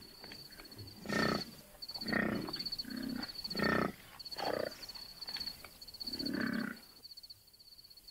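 Lions grunting and growling in a run of short calls, about one a second, stopping about a second before the end. A steady, high, pulsing chirp runs underneath.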